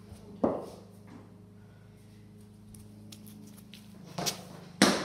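Sharp knocks of a cricket ball in play on a concrete garage floor: one about half a second in, then two close together near the end, the second the loudest, over a steady low hum.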